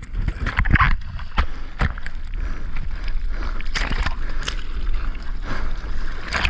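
Ocean water splashing and rushing around a surfer in big surf, with a steady low rumble and repeated sharp splashes.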